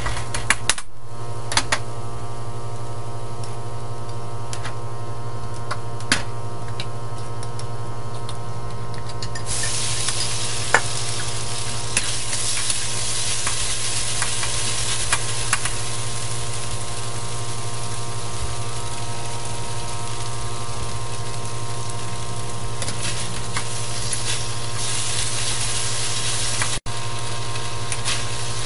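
A metal spatula scrapes and taps around a carbon-steel wok over a steady hum. About nine or ten seconds in, a loud sizzle starts as sliced beef hits the hot oil, and it keeps sizzling while the beef is stir-fried.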